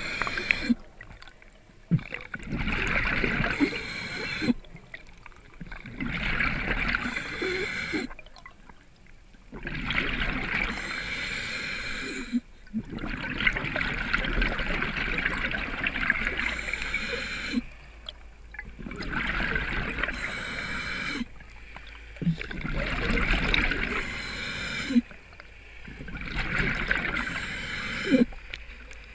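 Scuba diver breathing underwater through a regulator, heard from a helmet-mounted camera. Bubbly, gurgling bursts of exhaled air come in a regular cycle about every four seconds, with short quieter gaps between breaths.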